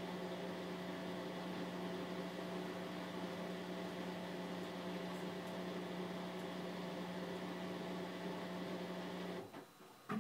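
Bosch WVT 1260 front-loading washing machine in its high-speed final spin, a steady hum with a high whine. Near the end the sound stops abruptly, followed by a couple of faint clicks.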